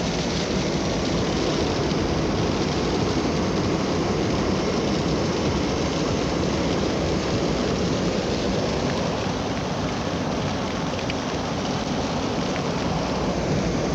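Wind buffeting a camcorder microphone in a blizzard: a steady rushing noise with no distinct events.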